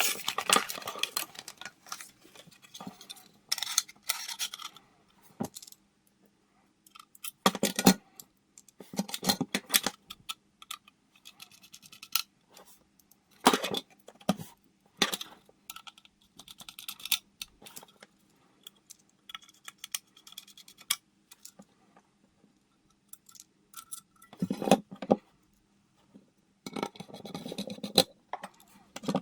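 Small metal and plastic computer parts and screws being handled during disassembly: scattered clicks, taps and short scrapes with brief pauses between them, and a faint steady hum underneath.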